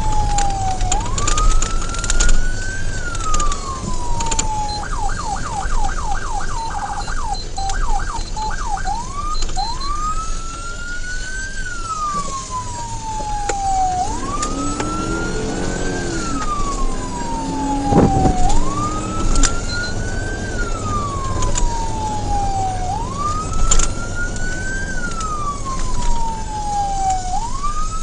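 Police car siren on wail, each cycle rising and falling over about four seconds. About five seconds in it switches to a fast yelp for a few seconds, then returns to the wail. Steady vehicle road noise runs underneath.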